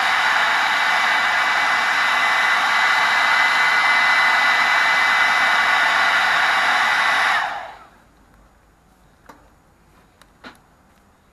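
Old hairdryer running steadily: a loud rush of air with a fixed high hum in it. About two-thirds of the way in it stops, dying away within half a second, and a few faint clicks follow.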